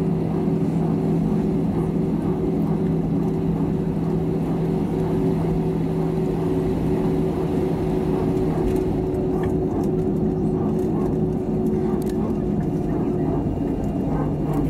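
Cabin noise of an Airbus A320-family airliner taxiing: its jet engines drone steadily at low power over a low rumble, with two steady pitches that dip slightly lower near the end.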